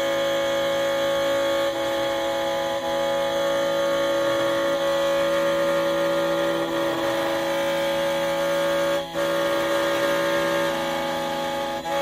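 Xhorse Condor XC-Mini Plus automatic key cutting machine milling a key blade, its spindle motor giving a steady whine with a short dip about nine seconds in and another near the end.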